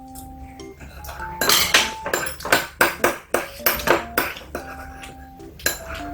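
Utensils clinking and scraping against dishes during a meal, with a quick run of clinks in the middle, over light background music of held notes.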